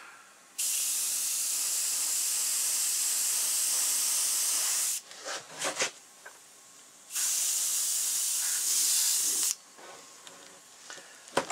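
Airbrush spraying paint: two long, even hisses of air, the first about four seconds and the second about two and a half, each starting and stopping sharply as the trigger is pressed and released, with a few faint clicks in the pause between them.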